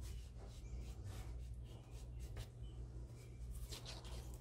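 An old towel rubbing over a painted metal-and-clay pendant lying on paper in quick, irregular strokes, wiping off wet black paint.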